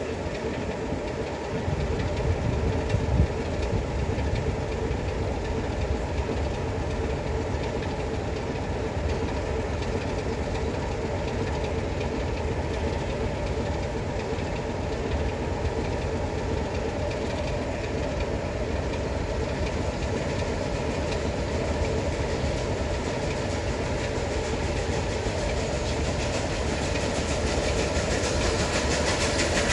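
Heritage train running steadily on the line: a continuous rumble with wheels on rail, growing slightly louder near the end.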